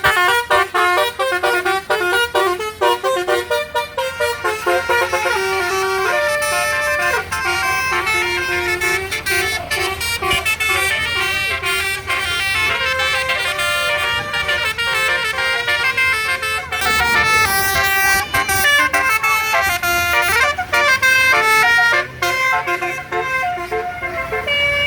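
Bus basuri horn, a multi-tone 'telolet' horn, playing a melody of quick stepping notes with a few held ones, again and again.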